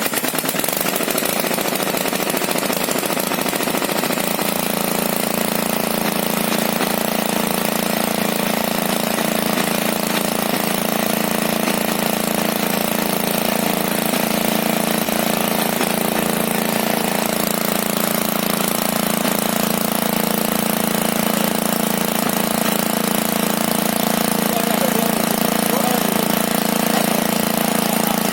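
Restored Greaves MK12 engine running steadily at a constant speed.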